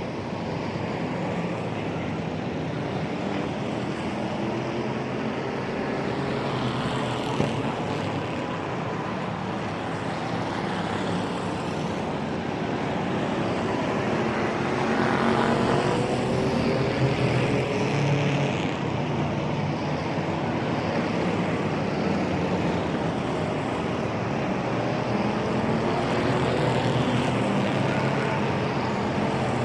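Motor-race sound effect: engines running steadily, with pitch glides about halfway through as a vehicle passes.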